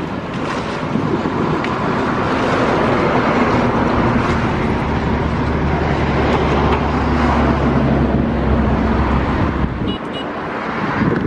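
A small engine running steadily with a low hum under a rushing noise, cutting off suddenly about ten seconds in.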